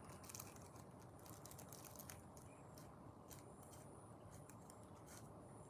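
Near silence: room tone with faint scattered ticks and rustles.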